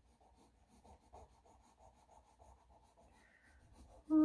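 Graphite pencil scratching on drawing paper in a faint run of short, quick strokes, sketching wolf fur. A person's voice comes in briefly just before the end.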